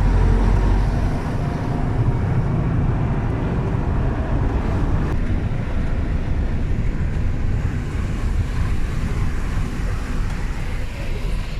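City bus under way, its engine and road noise a steady low rumble heard from inside the passenger cabin.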